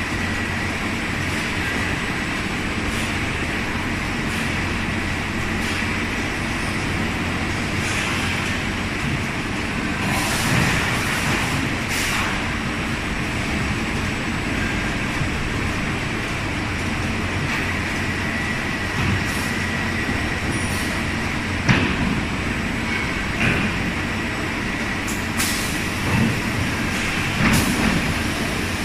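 Factory noise of a multi-blade rip saw line for wood boards and MDF running: a steady mechanical hum from its motors and roller conveyors. A few short hisses come a third of the way in and again near the end, and a sharp knock sounds about three quarters of the way through.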